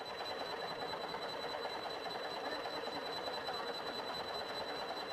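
Steady hiss with a thin, constant high-pitched whine and no distinct events.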